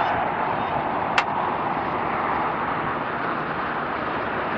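Airbus A340-300 taxiing, its four CFM56 jet engines running at low power with a steady rushing hum. A single sharp click sounds about a second in.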